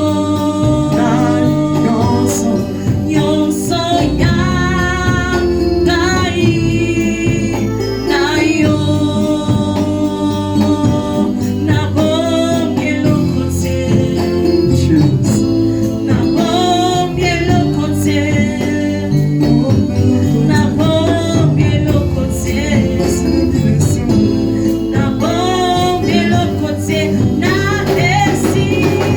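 Gospel worship music: singing over an accompanying band with a steady beat.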